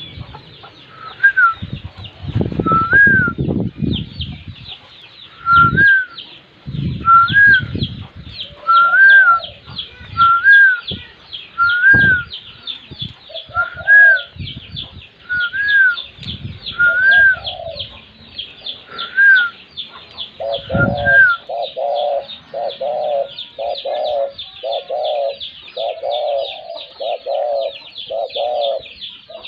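Birds calling together: constant rapid high chirping, with a rising-and-falling whistled note repeated every second or two for the first two-thirds. From about two-thirds of the way in comes a run of lower clucking notes, about two a second. Low thumps are mixed in during the first part.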